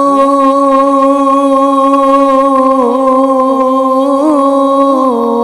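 A man singing a Punjabi Sufi kalam, holding one long drawn-out note with small ornaments in it, then stepping down to a lower note near the end.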